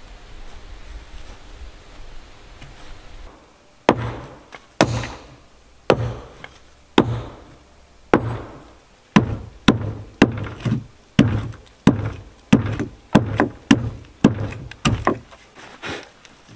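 A series of heavy blows on wood from a hand tool, such as an axe or mallet in log building. About seventeen strikes begin about four seconds in, roughly one a second at first and then quicker, nearer two a second.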